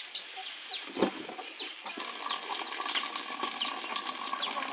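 Small birds chirping with many short, quickly falling notes throughout. About a second in comes a single sharp knock, the loudest sound; from about two seconds in, water runs steadily from an outdoor tap.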